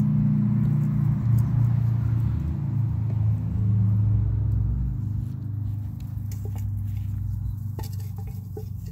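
A low, steady rumble, loudest in the first half, with Belgian Malinois puppies' scattered pattering and clicking and a few small squeaks in the second half.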